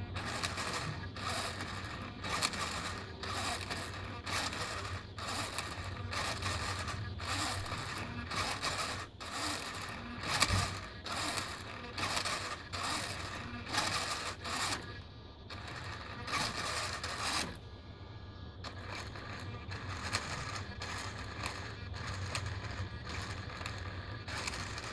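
Savox servo clicking: short scratchy bursts repeating irregularly, about one or two a second, over a steady low hum.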